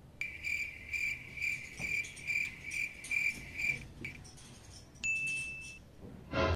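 Cricket chirping sound effect: an even train of high chirps, about two a second, that starts and stops abruptly about four seconds in. About five seconds in comes a short high beep.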